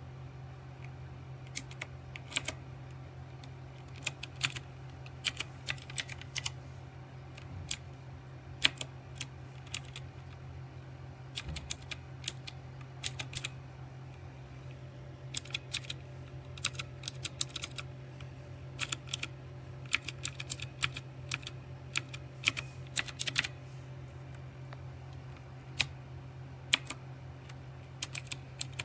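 Typing on a Redragon K552 mechanical keyboard with red linear switches: irregular runs of sharp key clacks broken by short pauses, over a low steady hum.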